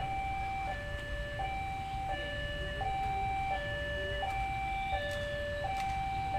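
Railway level-crossing warning alarm: an electronic two-tone signal alternating between a higher and a lower note about every two-thirds of a second, sounding as the crossing closes for an approaching train. A steady low rumble runs underneath.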